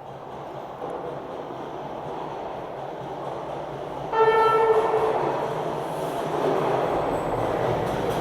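Toronto subway train on TTC Line 2 drawing in, its running noise growing louder. About four seconds in the train sounds one short horn blast, the warning given to workers at track level.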